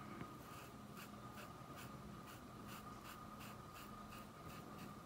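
Flat paintbrush scrubbing white fabric paint into cloth in short, faint scratchy strokes, about two or three a second.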